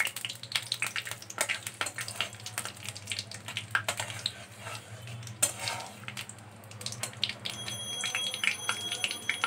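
Whole spices and bay leaves sizzling in hot mustard oil and ghee in a metal kadai, with a metal spatula scraping and clicking against the pan as they are stirred.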